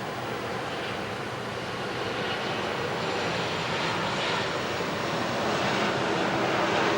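Engine noise of an airliner on approach to land, a steady rushing sound that grows gradually louder as the aircraft comes nearer.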